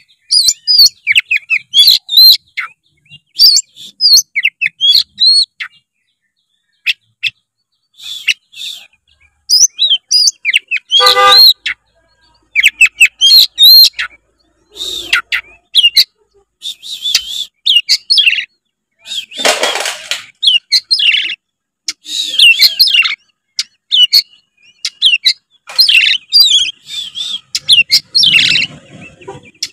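Oriental magpie-robin (kacer) singing loudly in full song: fast, varied whistled phrases in bouts with short pauses, broken by a couple of harsher rasping notes. It is the kind of vigorous song played to provoke a reluctant bird into singing.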